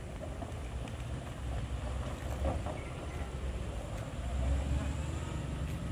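Cargo truck's engine running as it drives away over a rough gravel road, a low rumble that swells slightly near the end.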